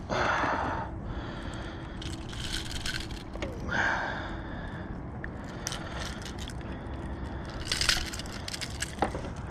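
Handling noise while a lure's hook is worked out of a bass's mouth by hand: two brief rustles, one at the start and one about four seconds in, then a few light clicks and taps near the end.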